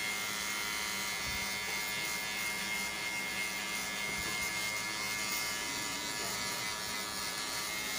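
Electric hair clippers buzzing steadily as they cut a child's short hair.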